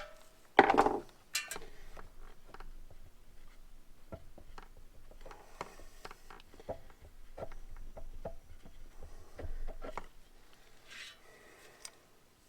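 Metal clinks and light clicking of hand tools and loose hardware as the pump is unbolted from a pressure washer, with one louder clank about a second in.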